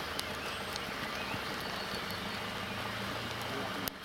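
Steady outdoor background noise, an even hiss with a low hum under it and a few faint chirps, broken by a sharp click just before the end where the sound changes.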